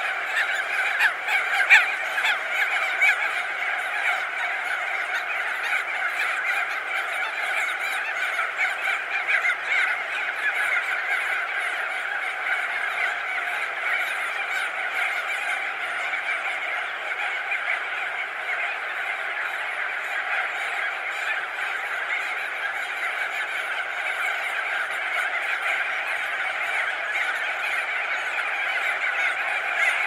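A crested auklet colony: thousands of birds calling at once, perched and wheeling overhead, in a dense, steady chorus of overlapping calls with no break. A few nearer calls stand out in the first few seconds.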